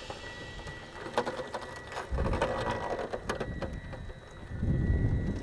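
Thin ice crackling and snapping as a radio-controlled model fireboat's hull pushes through it, scattered sharp cracks and clinks of ice shards, with two low rumbles, one about two seconds in and one near the end.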